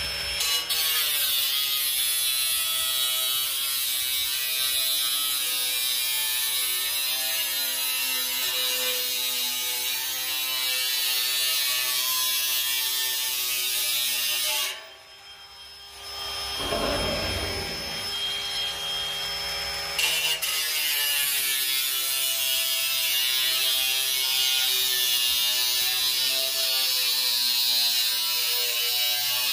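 Cordless angle grinder cutting through a steel oil drum, its motor whining steadily while the disc grinds the metal, the pitch wavering under load; its battery is nearly flat. The grinder stops about halfway through, a short low rumble follows, and it starts again and runs on.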